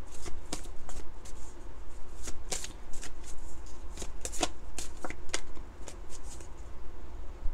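A large tarot deck being shuffled by hand, overhand style: cards slapping and sliding against each other in a quick, irregular run of clicks.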